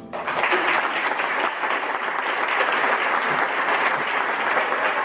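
Audience applauding: many hands clapping in a dense, steady patter that starts suddenly.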